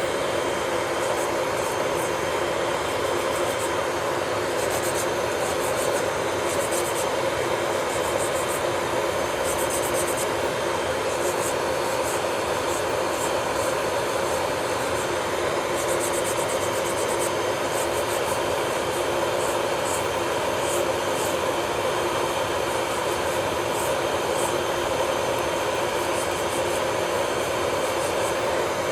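Electric nail drill (e-file) running steadily with a constant high whine, with faint scratchy ticks where the bit works against the nail.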